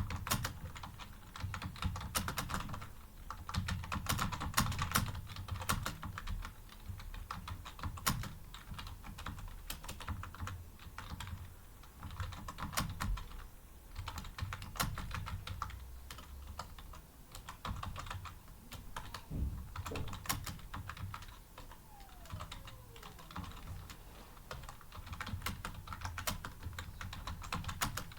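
Rapid, continuous typing on a computer keyboard, keys clacking in quick irregular runs with short pauses between bursts.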